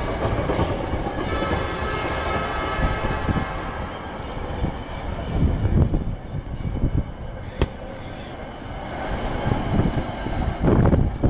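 Metra commuter train cars rolling by with a steady rumble and uneven low thumps. Several steady high-pitched tones ring over the first few seconds and fade, and there is a single sharp click about seven and a half seconds in.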